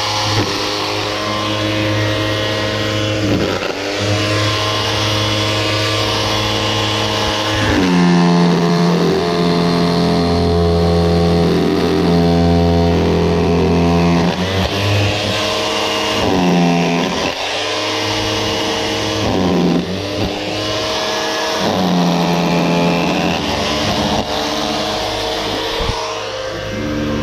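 Makita rotary hammer breaking out concrete blocks: a continuous buzzing hammer-and-motor note that dips and recovers in pitch several times as the bit bites into the block.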